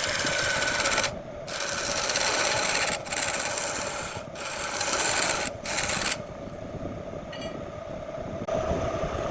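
Wood spinning on a lathe being worked by a tool pressed against it, giving a steady rasping scrape. The scrape breaks off briefly several times and goes quieter and duller for the last few seconds.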